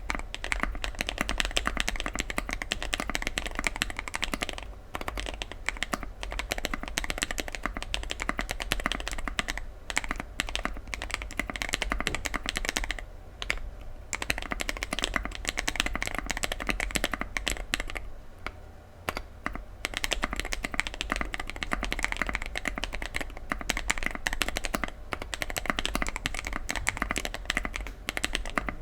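Mechanical keyboard being typed on fast and steadily: a dense run of poppy, clacky key presses, with short pauses a few times.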